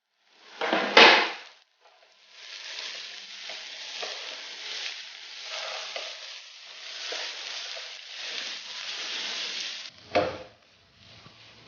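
Chopped carrot and cabbage stir-frying in hot oil in a pan. There is a loud burst of sizzling about a second in, then steady sizzling with the scrape of stirring, and a sharp knock near the end.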